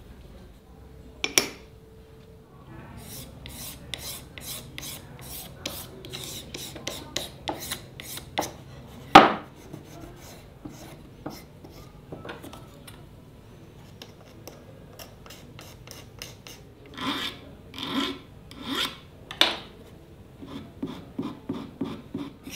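Hand filing: repeated short scraping strokes of a file on a workpiece, with a sharp knock about a second in and a louder knock near the middle. Four slower, heavier strokes come later, then quicker light ones near the end.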